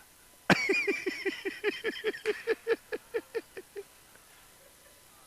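A high, voice-like sound that starts suddenly and breaks into a run of quick falling pulses, about five a second, fading out over about three seconds.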